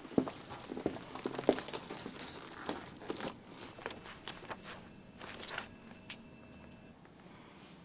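Footsteps walking away, growing fainter, mixed with the rustle and flap of glossy magazine pages being turned.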